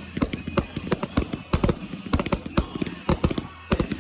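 Fireworks going off in a rapid, irregular barrage of sharp bangs and pops, several each second.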